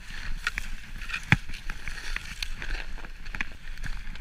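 Mountain bike ridden down a snowy forest trail: a steady tyre hiss on snow with many small clicks and rattles from the bike, and one sharp knock about a second in.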